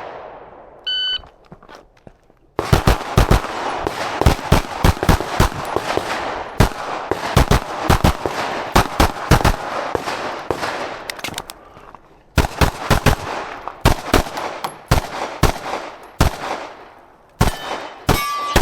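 A shot timer beeps once, then a Glock 17.5 pistol fires rapid strings of shots through a USPSA stage, with a brief pause near the middle, likely a reload. A short beep sounds near the end.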